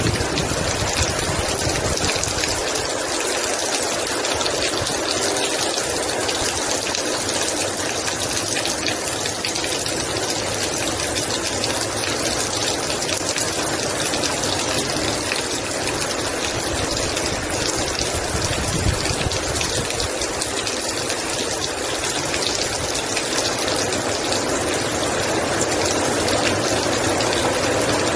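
Heavy rain falling steadily, an even dense hiss of water with no let-up.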